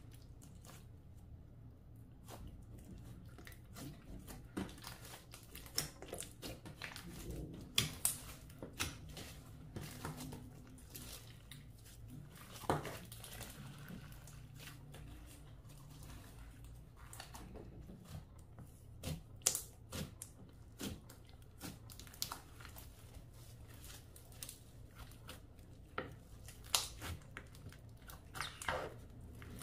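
Clear slime being kneaded and folded by hand, giving irregular sticky clicks and crackles, in denser clusters a few times.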